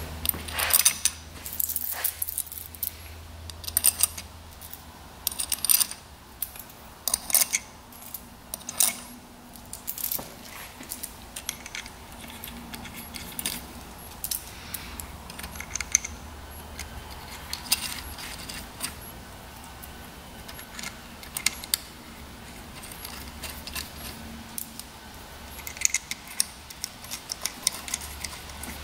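Clutch springs and bolts clinking and clicking as they are handled and set into a dirt bike's clutch pressure plate: many sharp metallic clinks at irregular intervals, some in quick clusters.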